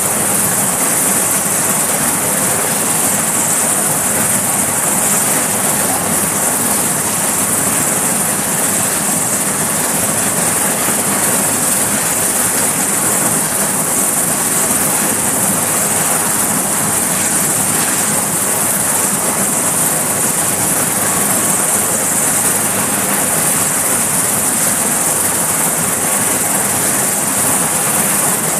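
Sikorsky S-61 helicopter running on the deck before lift-off, its turbine engines and turning rotors giving a loud, steady, high-pitched whine over a rushing noise.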